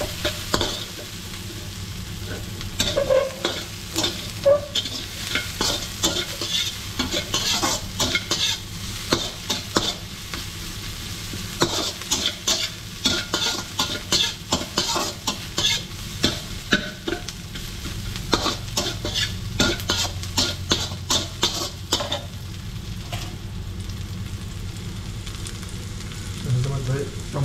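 Chopped onions sizzling in hot oil in a wok, with a metal slotted spatula scraping and knocking against the pan as they are stir-fried. The stirring stops for a few seconds near the end, leaving only the steady sizzle.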